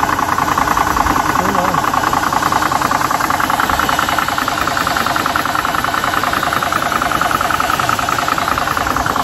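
Air Venturi Nomad II portable PCP compressor running steadily, its piston pump giving a fast, even mechanical chatter as it fills an air gun's reservoir.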